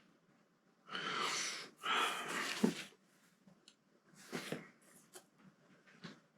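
Two long breathy exhales in a row, like a heavy sigh, about a second in. A few faint small clicks follow near the end.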